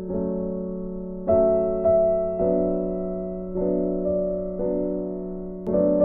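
Background piano music: slow, soft chords, struck about once a second and each left to fade.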